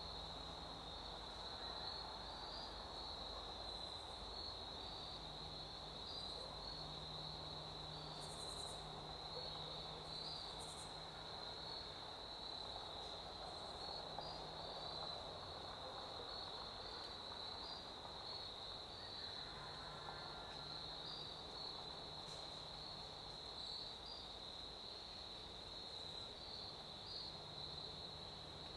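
Faint, steady high-pitched trilling of crickets, unbroken throughout.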